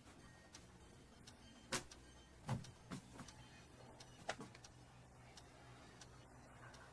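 Near silence, broken by a few soft clicks or taps in the first half.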